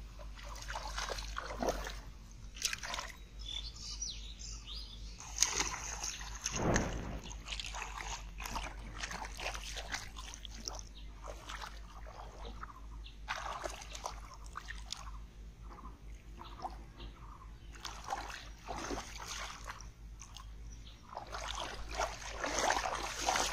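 Hands sloshing and splashing in shallow muddy water while groping for fish, in irregular bursts, loudest about six seconds in and again near the end.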